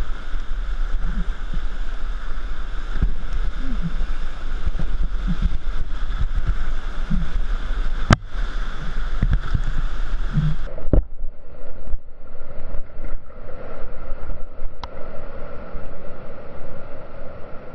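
Whitewater of a river rapid rushing loudly and steadily around a raft. There are two sharp knocks, about eight and eleven seconds in. Just before the second knock the sound turns muffled, as the higher part of the rush drops out.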